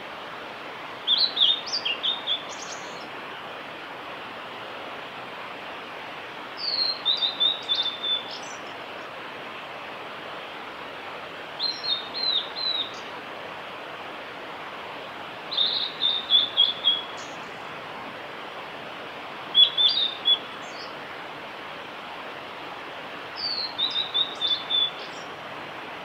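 Male blue-and-white flycatcher singing: six song phrases about four seconds apart, each a rapid string of high, slurred notes lasting one to two seconds, over a steady background hiss.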